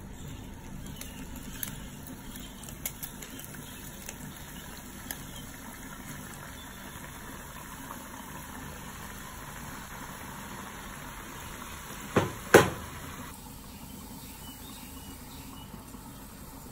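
Murukku dough deep-frying in hot oil in a kadai: a steady bubbling sizzle. A few light clicks come in the first seconds, and two sharp knocks close together come about three quarters of the way through.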